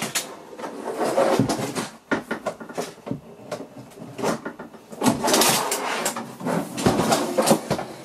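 The plastic housing and loose curved LCD panel of a Samsung curved monitor being handled and turned over on a wooden table: clattering and knocking. It comes in two spells, one in the first two seconds and one from about five seconds in, with scattered clicks between.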